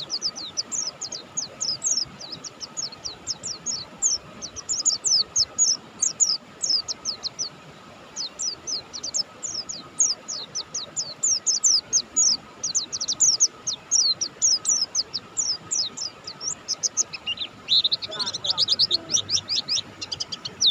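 Buxtoni white-eye (pleci) singing gacor: a fast, unbroken stream of high, quick chirping notes, with a short pause about seven seconds in.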